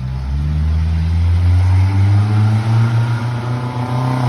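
A vehicle engine pulling under acceleration, its pitch climbing steadily, then dropping suddenly near the end, as at a gear change, before it starts to climb again.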